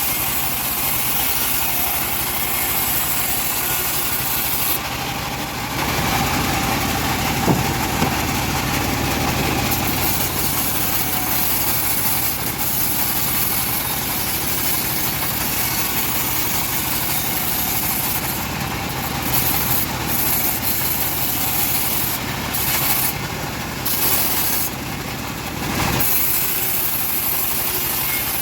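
Engine-driven homemade bandsaw mill running steadily while sawing a log. The sound grows heavier about six seconds in and lightens again near the end.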